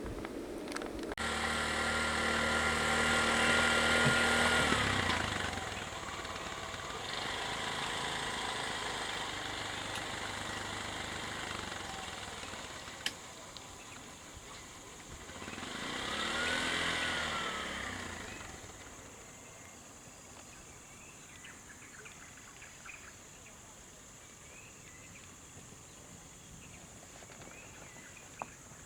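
Motor vehicles passing on a road: a loud pass in the first five seconds, then a second vehicle about halfway through whose engine note rises then falls as it goes by. After that the engine sound fades to a quieter steady background with a constant high insect drone.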